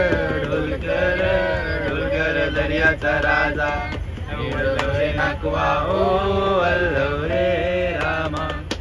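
Voices singing a Koli folk song in long, drawn-out notes, over the steady low rumble of a moving train.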